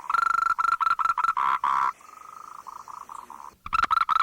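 A frog calling in runs of short notes at one pitch, the notes growing longer as each run goes on. A quieter run fills the middle, and a loud run starts again near the end.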